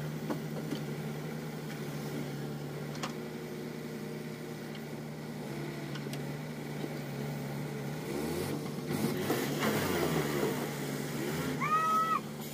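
Heavy diesel engine running steadily, then revved up and down a few times about eight seconds in. A brief high-pitched tone sounds near the end.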